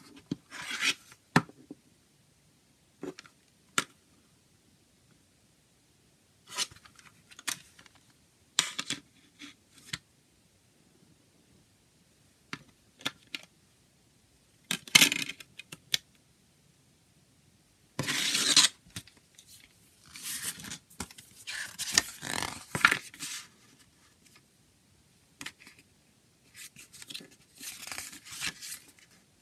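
A plastic CD jewel case and its paper booklet being handled. Sharp clicks and snaps of the plastic case come first, then stretches of crackly paper rustling as the booklet pages are turned.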